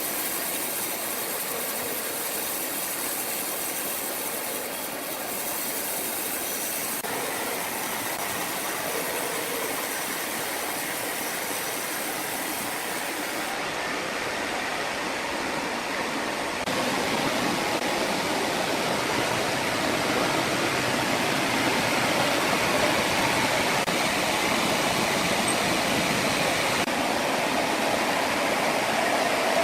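Sawmill saw running and cutting through a large log: a steady, noisy machine sound that changes abruptly several times and gets louder about seventeen seconds in.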